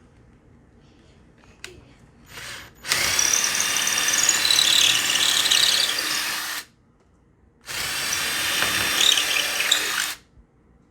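Power drill with a 1/4-inch bit boring into wood, drilling out stripped hinge screw holes to take dowels. A brief squeeze of the trigger, then two longer runs of about three and a half and two and a half seconds with a short pause between.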